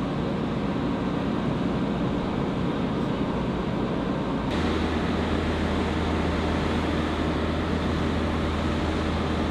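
Steady harbour-side ambience, a dense low rumbling noise. About four and a half seconds in it changes abruptly, and a steady low hum joins.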